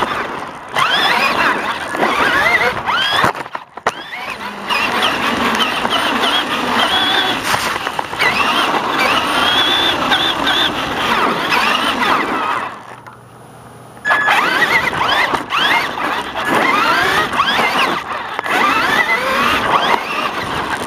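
Radio-controlled car's electric motor whining close up, its pitch rising and falling as the car speeds up and slows, over the rattle and rumble of the chassis on concrete. It drops away for about a second near the middle, then picks up again.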